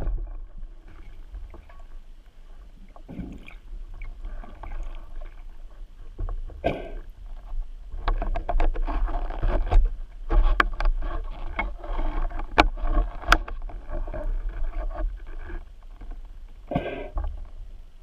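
Underwater water noise from a diver moving with a roller speargun: irregular spells of swishing and sloshing, busiest in the second half, with scattered sharp clicks and knocks of gear.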